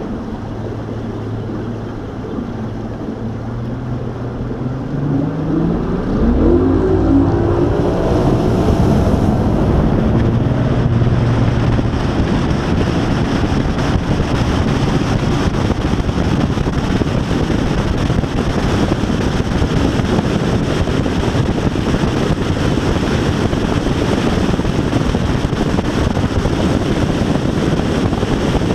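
Bass boat's outboard motor running low, then throttled up with a rising pitch about five seconds in. It then runs steadily at speed under loud wind noise on the microphone and rushing water.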